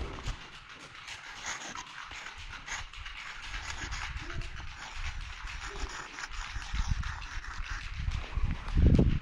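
Marker tip scratching and squeaking across a rough wall as a tag is written: a crackly, scraping hiss full of small ticks that comes and goes with the strokes. Low bumps sit underneath, with the loudest one just before the end.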